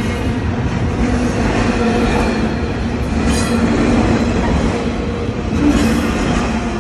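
Freight train cars rolling past close by: a steady rumble and clatter of steel wheels on the rails, with some wheel squeal.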